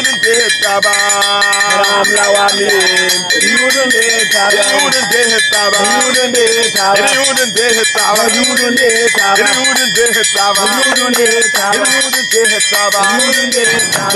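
A voice singing a wavering melody over a fast, steady metal bell rhythm.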